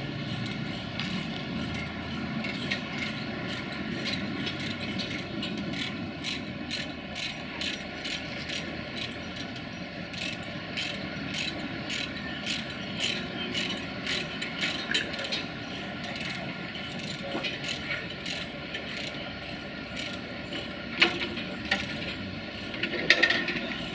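Ratchet chain binder being cranked by hand, a steady run of ratcheting clicks as the tie-down chain on the tram's transport trailer is worked loose for unloading, with two louder metallic knocks near the end.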